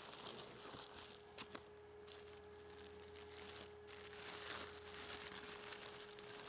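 Thin plastic bag crinkling and rustling in uneven spurts as it is pulled off a GPS antenna by hand.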